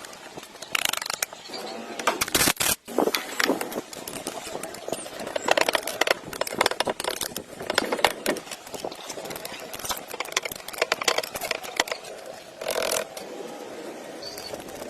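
Metal parts and hand tools clicking, knocking and scraping in quick irregular strokes as an engine is worked on, with a brief break a little under three seconds in.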